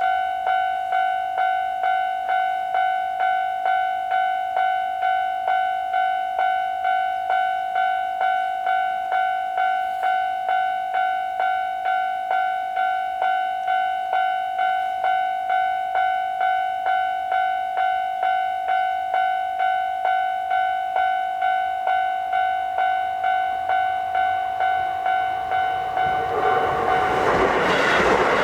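Japanese level-crossing warning bell ringing, the electronic "kan-kan" ding repeating about twice a second. Near the end the rushing noise of an approaching Keisei Main Line train builds and drowns the bell.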